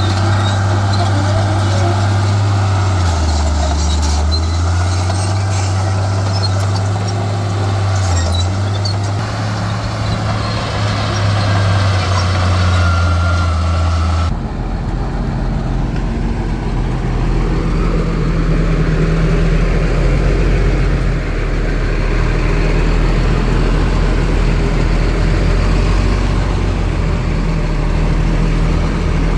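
Heavy diesel engines of earthmoving machinery running, the engine speed dropping and picking up again a few times. About halfway through the sound changes abruptly to a different, deeper engine that runs on steadily.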